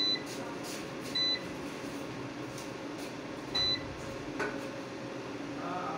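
Control panel of an Inverex Axpert King 5.2 kW solar inverter beeping as its buttons are pressed: three short high beeps, at the start, about a second in and past three seconds in. A low steady hum runs underneath.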